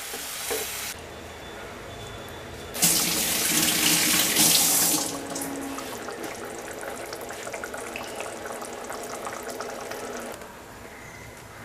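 A ladle stirs thick curry gravy in a clay pot. About three seconds in, water is poured in for about two seconds, then a softer steady hiss follows from the thinned gravy in the hot pot.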